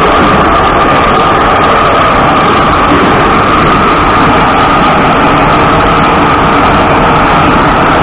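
Ezh3 metro car running, heard inside the passenger car: loud, steady rumble and rail noise with a steady high whine over it.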